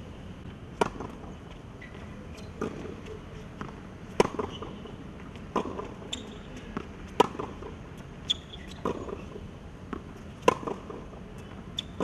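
Tennis rally: the ball struck back and forth with rackets and bouncing on a hard court, a sharp hit about every second and a half, the loudest roughly every three seconds.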